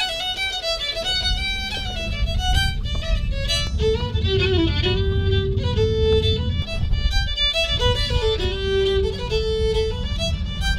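Background music with a fiddle playing a melody of long held notes that step and slide, over a steady low accompaniment.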